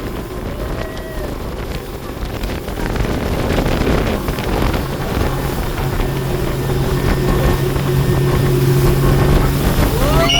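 Speedboat under way at speed: a dense rush of wind on the microphone and water, with the boat's engine drone under it settling into a steady hum about halfway through.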